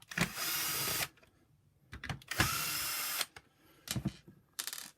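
Small cordless power screwdriver running in two bursts of about a second each, followed by a quick run of clicks near the end.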